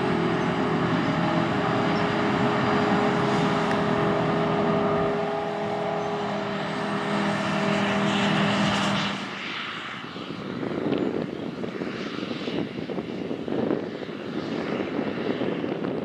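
Claas Jaguar 870 self-propelled forage harvester working close by with a tractor alongside: a loud, steady drone of engine and chopper with several steady humming tones. About nine seconds in it cuts to a more distant, gusty sound with wind on the microphone and the machines fainter.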